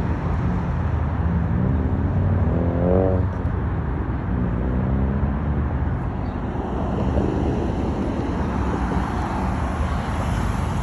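Road traffic: cars passing with a steady rumble of engines and tyres, one engine rising in pitch as it accelerates about two to three seconds in.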